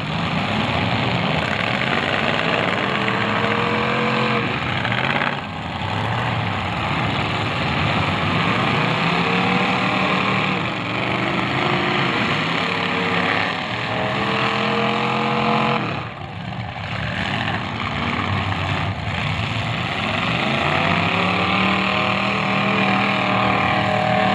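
Several demolition derby cars' engines revving hard at once, their pitches climbing and falling over and over as the cars accelerate and back off.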